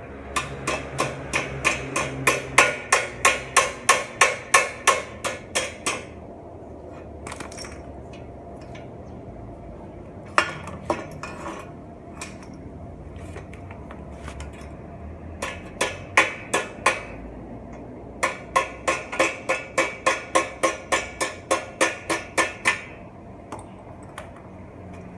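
Hammer striking metal bicycle parts in quick, even blows, about four to five a second, in two long runs with a few scattered knocks between.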